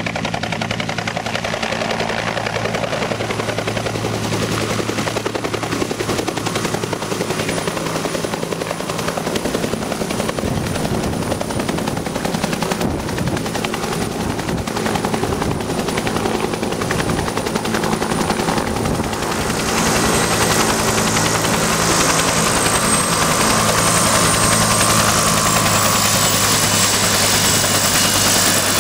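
Bell UH-1B Huey helicopter running: the two-bladed main rotor beating steadily over its Lycoming T53 turbine as it flies in and sets down. About twenty seconds in, a high turbine whine grows louder and stays.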